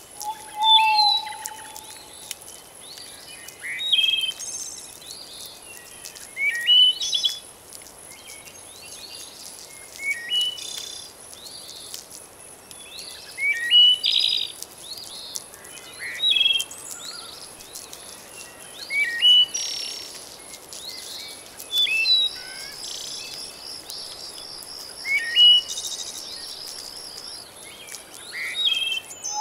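A songbird repeating short chirping phrases about every three seconds over an even hiss of flowing water, with a steady high insect buzz throughout and a pulsing insect trill joining in the second half.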